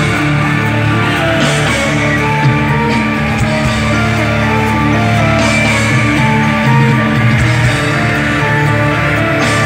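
Loud rock music with guitar, played over a stadium's PA system.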